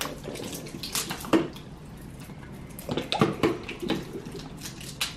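Slime being handled and squeezed: irregular wet squelching and sticky clicking, with a few sharper clicks about a second in and again around three seconds in.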